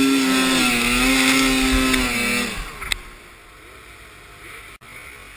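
Snowmobile engine at high revs, held nearly steady, then dropping off sharply about two and a half seconds in. A single sharp click follows, then a much quieter engine sound.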